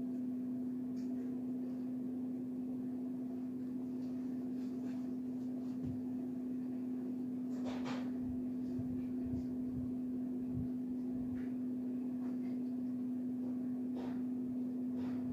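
Quiet room tone carrying a steady low hum, with a faint knock about eight seconds in.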